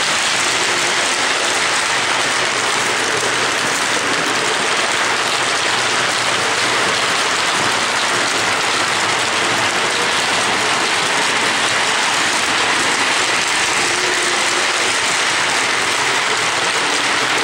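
Lionel O27 electric model trains running on three-rail tubular track: a steady whirring of motors and metal wheels on the rails that keeps on without a break.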